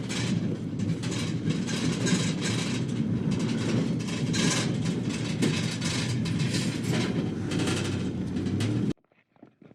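Minivan on the move, with road noise and a steady rattling clatter from its load; the sound cuts off abruptly about 9 seconds in.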